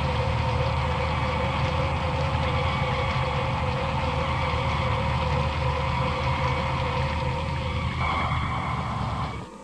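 Electronic science-fiction sound effect of a spacecraft's beam of light taking people aboard: a steady deep hum with a held tone over it. Near the end the tone shifts higher, and then the sound cuts off suddenly.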